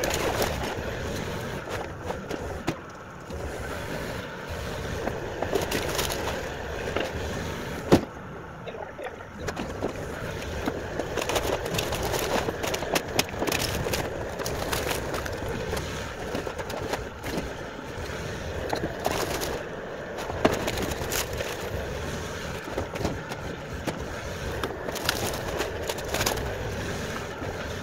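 Bobcat compact excavator's diesel engine running under load while the bucket scrapes and crunches through demolition debris, with scattered knocks and snapping wood; one sharp crack stands out about eight seconds in.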